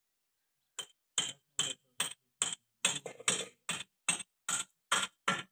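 About a dozen short scraping strokes, two to three a second, from a thin metal pick working a new seal over the piston rod of a tractor power-steering cylinder.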